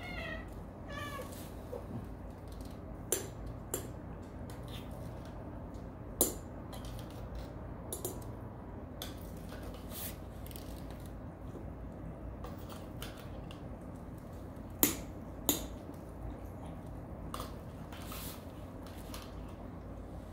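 Cats eating from ceramic food bowls, with a short meow near the start. Scattered sharp clicks and clinks of mouths against the bowls follow, the loudest about 6 and 15 seconds in.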